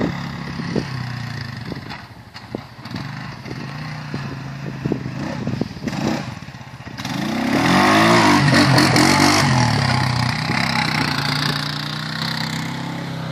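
Honda Rubicon ATV engine running as the quad drives across a grassy field. About seven seconds in it gets louder and its pitch rises as it is throttled up, then it eases back to a steadier run.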